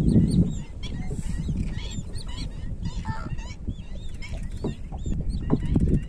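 A flock of greater flamingos calling in flight: many short, goose-like honks overlapping throughout. A low rumble drops away about half a second in.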